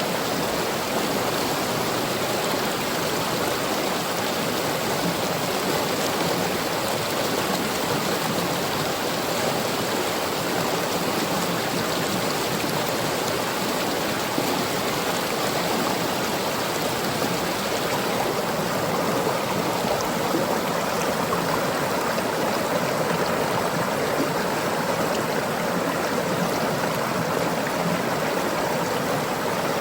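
Small river stream flowing with a steady rush of water.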